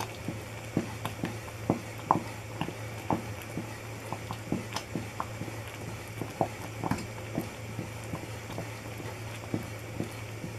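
Thick fudge mixture of sugar, condensed milk and butter boiling in a pan, its bubbles popping irregularly a few times a second over a steady low hum.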